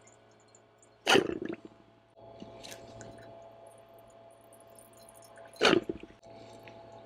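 Two short, sudden squirts from a plastic squeeze bottle, about a second in and again near the end, over a steady faint hum. The bottle is forcing diesel into the open injector ports of a hydrolocked Yanmar 4JH3-TE diesel to help float the water up out of the cylinders.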